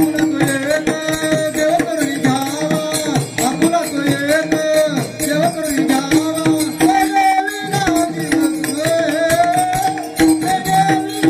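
Devotional kirtan music: a sung melody over a steady held drone, with a hand drum and jingling percussion keeping the beat.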